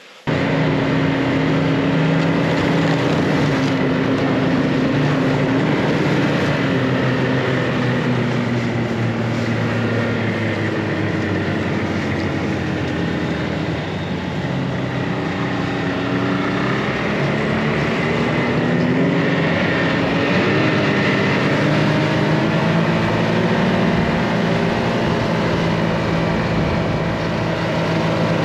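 Snowmobile engine running at travelling speed, its pitch drifting slowly up and down with the throttle, over a steady rush of noise.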